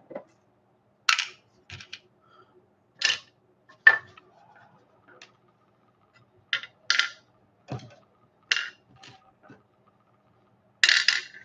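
Screwdriver and small screws clicking and scraping against a receipt printer's frame as the screws are taken out: about ten short, irregular clicks and rattles, with a longer clatter near the end.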